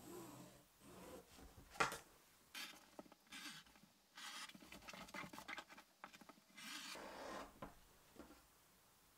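Rotary cutter and ruler working on fabric: scratchy sliding and rustling of the cloth, a sharp tap about two seconds in, and a longer stretch of dense scratching from about four seconds as the rotary cutter rolls through the fabric.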